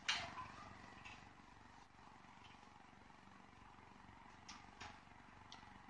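A few short, soft swishes of a whiteboard being wiped clean, the loudest right at the start and a couple more about four and a half seconds in, over a faint steady hum.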